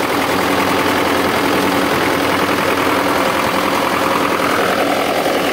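DT-75 crawler tractor's SMD diesel engine idling steadily.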